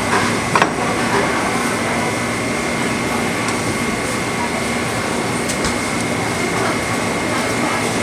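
Busy market stall ambience: a steady noisy hum with background voices, and one sharp knock about half a second in.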